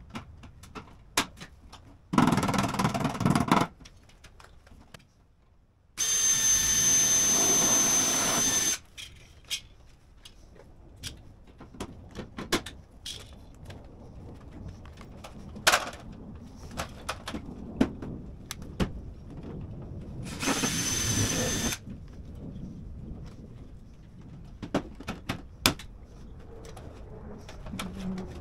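Power drill running in three short bursts, the longest almost three seconds with a steady high whine, drilling rivet holes through a metal rain head into the fascia. Scattered sharp clicks and knocks between the bursts.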